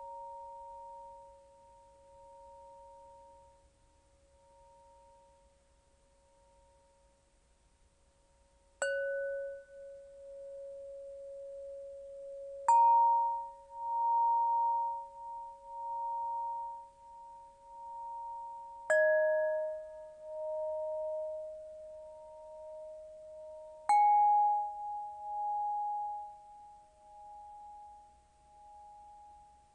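Crystal pentonia struck four times. Each stroke starts a clear, pure tone that rings on for several seconds, wavering as it sustains and overlapping the notes before it. The opening seconds hold only the faint fading ring of earlier notes.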